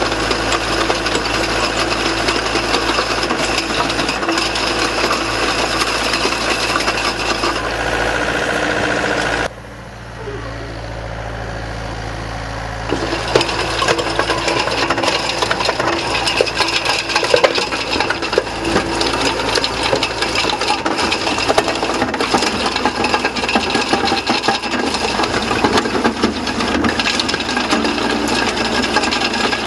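REMU Crossover screening bucket on an excavator running, its screen rattling as soil sifts through and pours out, over the excavator's engine. The sound drops to a lower level about a third of the way in and comes back a few seconds later.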